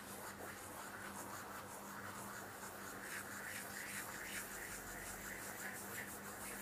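Carom seeds (ajwain) being crushed between two palms: faint, dry rubbing with many small scratchy strokes.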